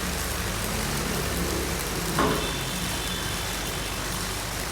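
Steady machine hum with a constant hiss, and a single knock about two seconds in.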